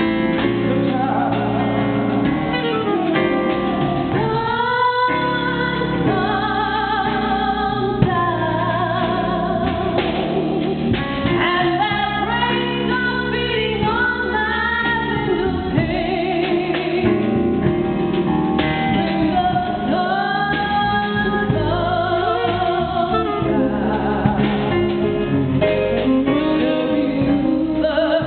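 Live blues performance: a singer's sung melody over band accompaniment, continuous throughout.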